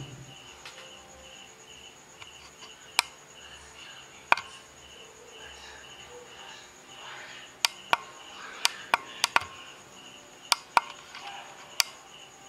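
A cricket chirping steadily, an evenly pulsing high note, with scattered sharp clicks and taps, most of them in the second half.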